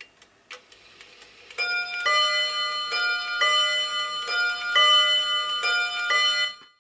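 Soviet-made pendulum wall clock ticking steadily, about three ticks a second. About a second and a half in, it starts striking the hour: a series of about eight ringing chime strikes. The sound cuts off suddenly near the end.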